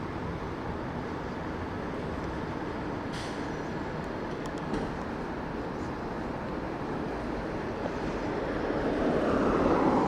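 Steady city street traffic, with a vehicle passing close by that grows louder over the last couple of seconds and peaks near the end.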